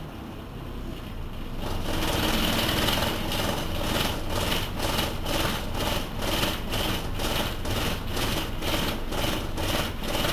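The MIPS diesel engine of a 1978 Berliet PR100 MI bus running with the bus standing still. It gets louder about two seconds in, then settles into a regular pulsing about three times a second.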